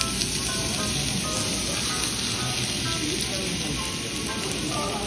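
Thin slices of beef sizzling steadily on a hot tabletop Korean barbecue grill plate, with background music.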